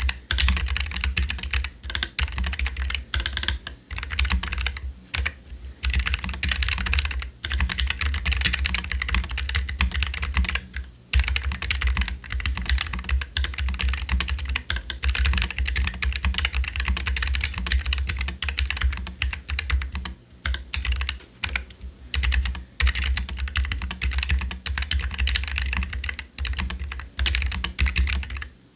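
Keychron K3 Pro low-profile mechanical keyboard with stock Gateron low-profile red linear switches and PBT keycaps, typed on fast and steadily, a dense run of key clacks broken by a few brief pauses.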